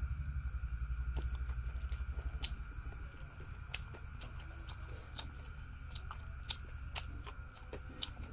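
Close-up eating sounds of a person chewing rice and eromba eaten by hand: irregular sharp mouth smacks and clicks over a steady low hum that weakens about three seconds in.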